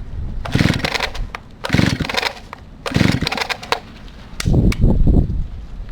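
Old Stihl 08 S chainsaw being pull-started: three quick yanks of the recoil starter cord about a second apart, each a short rasping whirr as the engine is cranked over, without the engine firing. A lower rattling clatter follows near the end.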